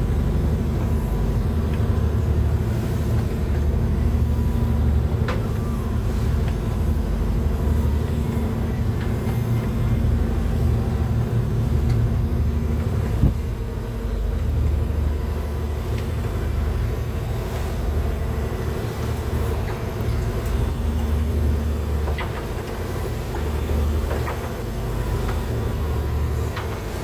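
Lobster boat's engine running steadily under way, a deep continuous rumble, with one sharp knock about halfway through.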